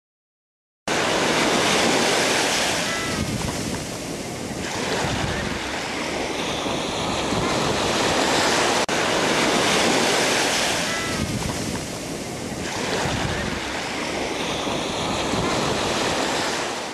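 Sea surf washing in over a sandy beach, starting about a second in: a steady rush of breaking water that swells and eases in slow waves.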